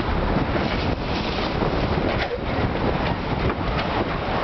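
Wind buffeting the microphone over the rush of water along the hull of a J/105 sailboat moving fast and heeled through choppy water. The noise is steady and heavy in the low end.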